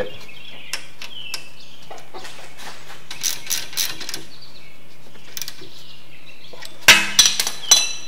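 Hand tools working the brake line retaining bracket bolt on a rear brake caliper. A socket wrench ratchets in a short run of clicks about three seconds in, and there are scattered metal clinks, with a louder burst of metallic clinking near the end.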